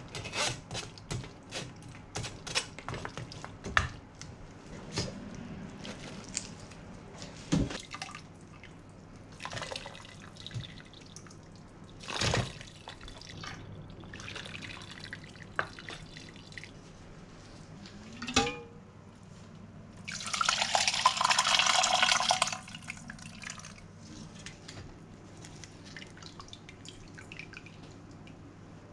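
Ramen soup stock draining and dripping through a stainless mesh strainer full of boiled bones and vegetables, with a metal ladle knocking and scraping against the mesh. About 20 seconds in comes a loud rush of liquid lasting about two seconds.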